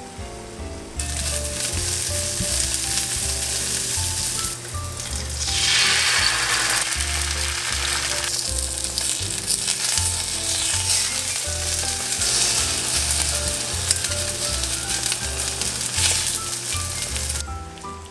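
Eggs frying in oil in a cast-iron skillet: a steady, loud sizzle that drops away briefly a couple of times.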